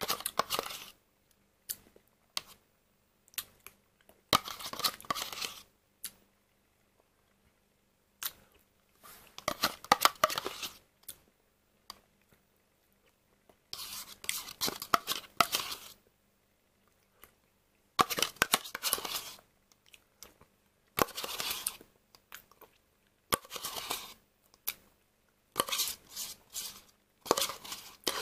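Metal spoon scraping the inside of a plastic dessert cup to get out the last remains, in repeated scratchy strokes of a second or two with short pauses between.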